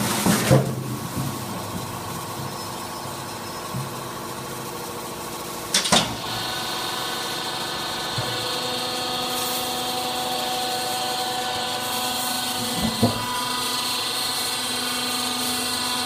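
Hydraulic drum-crusher press running with a steady motor-and-pump hum. A few metallic knocks come near the start as a steel drum goes into the chamber, then a loud clunk about six seconds in, after which a higher whine joins the hum; another clunk follows near the end.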